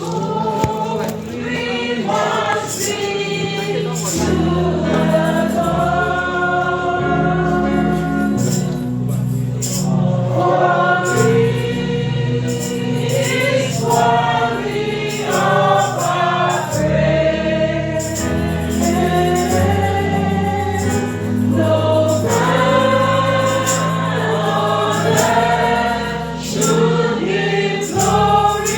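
Congregation singing a gospel praise song over a steady keyboard bass and drum beat.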